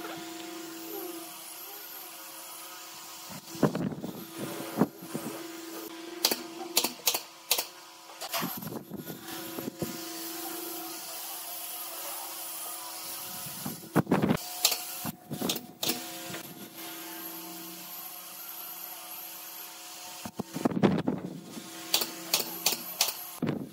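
Pneumatic brad nailer firing nails into pine, sharp shots in clusters of a few at a time, over a steady low hum.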